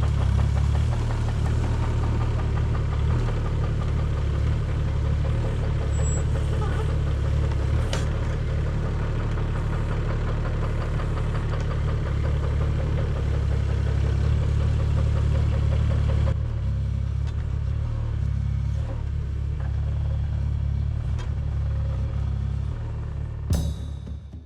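Mini excavator's diesel engine running steadily under work, with a single knock about eight seconds in; the sound cuts off near the end.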